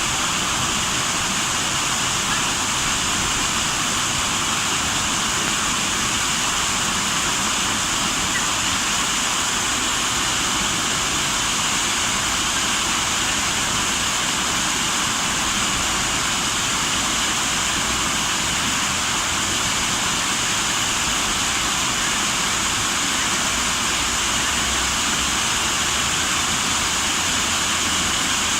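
Rushing water, a steady, even rush that holds unchanged throughout.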